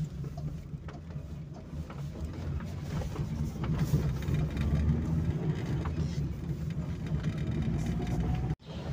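Car engine running and road noise heard from inside the cabin while driving, a steady low rumble that swells slightly midway. It cuts out abruptly near the end.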